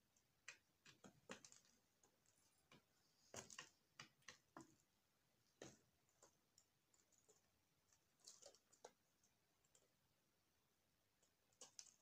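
Faint, irregular clicks and taps of doves pecking at seed and grit on the floor of their cage. The taps come in small clusters with quiet gaps between them.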